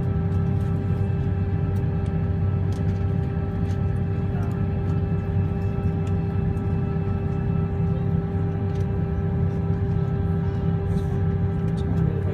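Steady jet engine and cabin noise inside a taxiing airliner: a low rumble with a constant whine on a few fixed tones, holding level with no run-up.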